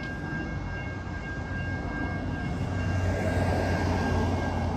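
Siemens S700 light rail test train approaching along the track, its rumble growing louder from about three seconds in.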